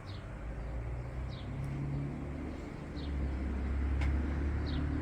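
A steady low motor hum, like a vehicle running nearby, growing a little louder after about three seconds, with a short high chirp repeated every second or so.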